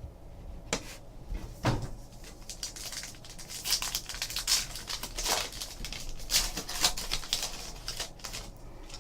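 A trading card pack being opened and its cards handled: a run of crinkles, rustles and small clicks from the wrapper and cards, starting about a second in and going on until near the end.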